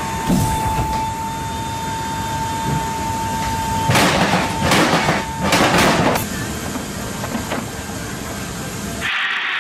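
Inside a C-17 cargo hold with the ramp open in flight, a steady rush of engine and wind noise carries a constant high tone. About four to six seconds in come three loud rattling rolls as heavy-drop cargo platforms run out along the floor rollers and off the ramp. Near the end the noise changes abruptly to a harsher hiss.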